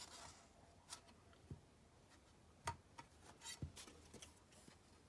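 Faint scattered clicks and light taps of a plastic DVD case and its disc trays being handled, several small knocks over a few seconds.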